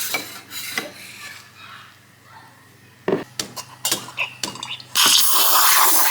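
Kitchen clatter: dishes and utensils clinking and knocking, then a loud steady rushing noise from about five seconds in.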